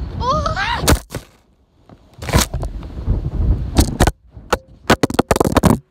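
A short whoop, then a string of knocks, clicks and scrapes on the microphone as the phone is grabbed and moved about.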